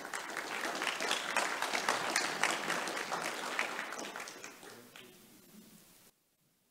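Audience applauding, a dense patter of many hands clapping that thins and dies away over the last couple of seconds, then cuts off suddenly near the end.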